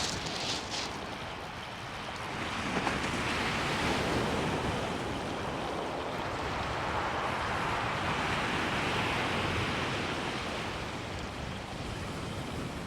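Sea waves breaking and washing up a shingle beach, swelling a few seconds in and holding, with wind on the microphone. A few brief high clicks in the first second.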